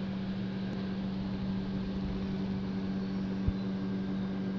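Steady mechanical hum with a constant low tone, and a single sharp click about three and a half seconds in.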